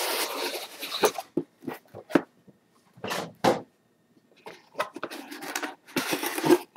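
Cardboard model-kit box being opened from the side: the inner box slides out against the outer sleeve in a few scraping rubs, with irregular light knocks and taps of the cardboard being handled.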